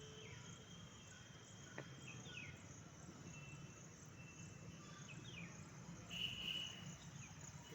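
Faint insect chirping, a steady high pulsing about three times a second, with a few short falling chirps and a brief high whistle about six seconds in.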